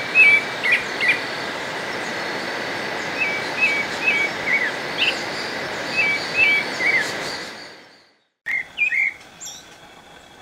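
Pale-breasted thrush singing short, clear notes in quick repeated phrases over a steady background hiss. The hiss fades out about eight seconds in, and after a moment's silence a few more notes follow over a quieter background.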